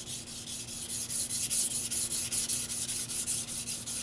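A carbon-steel (white steel #2) Tojiro petty knife blade scraping back and forth on a wet Shapton Pro whetstone in quick, even strokes, several a second. The blade is being thinned near its tip.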